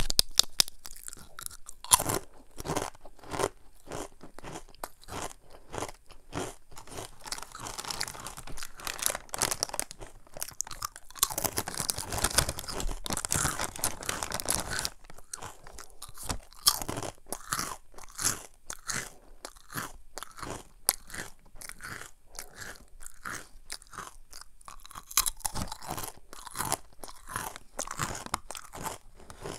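Crunchy Samyang Jjanggu churro snack pieces being bitten and chewed with the mouth close to the microphone: a continuous run of sharp, crackling crunches, densest in the middle.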